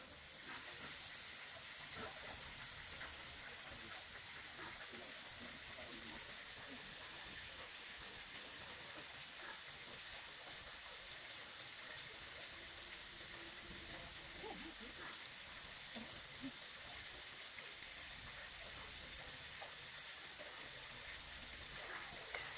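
Steady hiss of background noise, with a few faint short sounds scattered through it.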